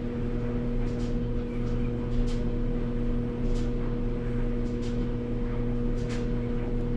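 Steady electrical or machine hum, with a few faint clicks or rustles over it.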